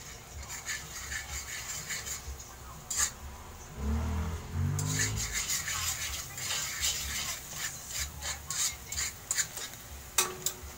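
Metal spatula scraping and stirring scrambled egg around a large metal wok, in many quick uneven strokes. A short low-pitched hum stands out about four seconds in.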